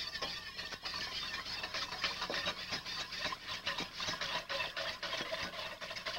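Wire whisk beating flour and cold water in a large pot, with continuous scraping and clicking against the pot and sloshing liquid, as the lump-free paste is thinned into a blanc.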